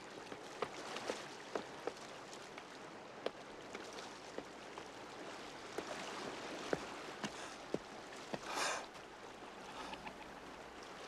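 Creek water running over rocks, with scattered sharp clicks and knocks of feet and loose stones on the boulders. There is a brief louder rush about eight and a half seconds in.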